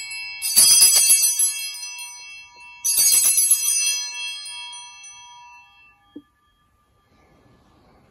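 Sanctus bells (altar bells) shaken twice, about two seconds apart, each ring a bright jangle that fades slowly: they mark the elevation of the chalice at the consecration. A single light knock about six seconds in.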